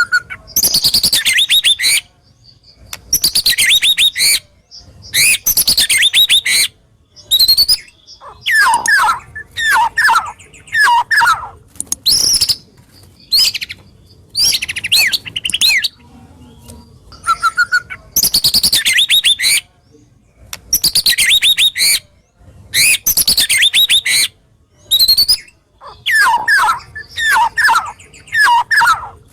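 White-rumped shama (murai batu) singing rough, sharp 'tembakan' bursts. These are phrases of about one to two seconds of rapid high notes, repeated again and again with short pauses between them.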